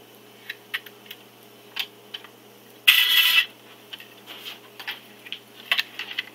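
Scattered light clicks and handling noises from a small plastic toy helicopter and its remote being readied, with one louder scraping rustle lasting about half a second, three seconds in.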